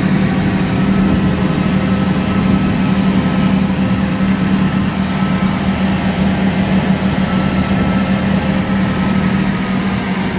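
Zetor Crystal 170 HD tractor's diesel engine running steadily at constant speed, a loud even drone with a strong low hum.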